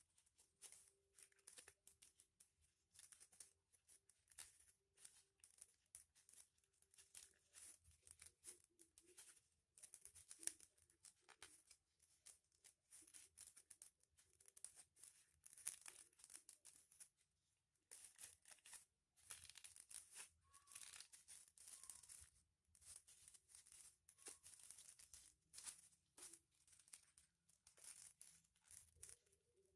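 Faint, irregular crinkling and rustling of foil-backed paper as it is folded and creased by hand, in many short strokes with brief pauses.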